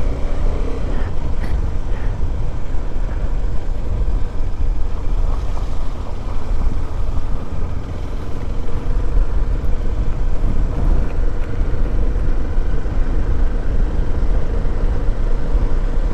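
Motorcycle engine running steadily as the bike is ridden slowly over a rough, icy track, under a strong, even low rumble.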